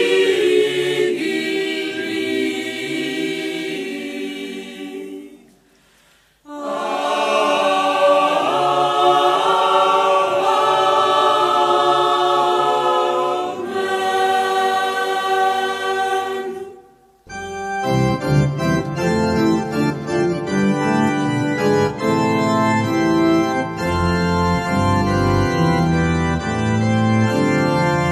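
Mixed choir of men's and women's voices singing unaccompanied, breaking off briefly about six seconds in and then resuming. About seventeen seconds in the singing cuts off and an organ plays sustained chords.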